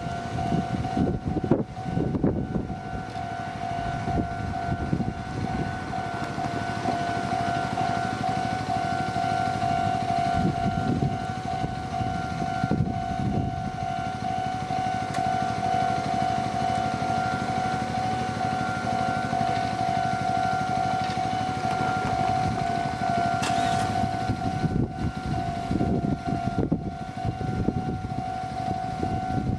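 Japanese level-crossing warning bell ringing its steady electronic 'kan-kan' tone without a break, while a train rumbles through the crossing.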